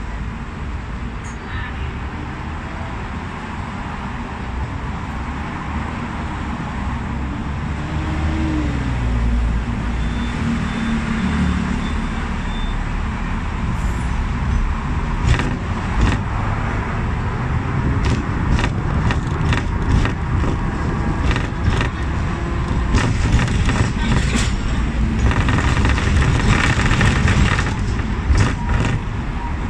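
Hong Kong double-decker tram heard from its upper deck as it runs along the tracks: a steady low rumble of motor and steel wheels on the rails that grows louder as it picks up speed. From about halfway on it is thick with short clicks and rattles.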